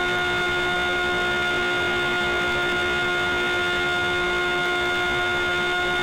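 A steady, unchanging hum with several overtones, holding one pitch throughout.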